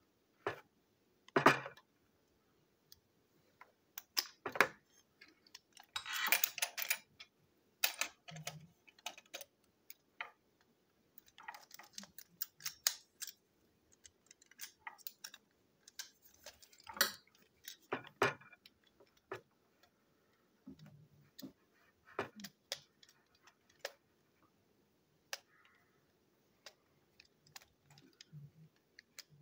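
Small screwdriver working the screws of a toy train wagon's plastic chassis: irregular clicks, ticks and scrapes of plastic and metal being handled, with a longer scratchy rattle about six seconds in.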